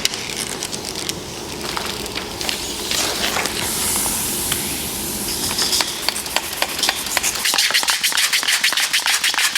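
Paint protection film being handled during installation: hissing sprays and crackling of the film, with a quick run of crackles in the last couple of seconds.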